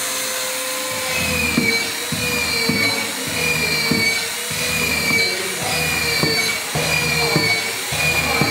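A handheld power tool whining as it is worked along a wooden plank, its pitch dipping in a regular rhythm about once a second.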